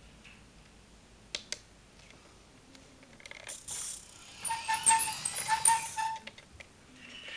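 Radio-controlled SIKU Scania R620 model truck with tipper trailer pulling away on a tiled floor: its small electric drive motor and gears whir and the plastic body rattles for about three seconds, after two light clicks earlier on.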